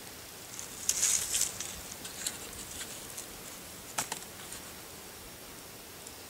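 Scattered crackles and pops from a bed of coals under a skillet of heating oil on a grill grate, densest about a second in, with a sharper tick about four seconds in, over a steady faint hiss.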